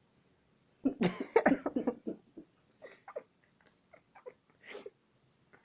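A person coughing in a burst of short, rapid coughs about a second in, followed by a few scattered, quieter short sounds.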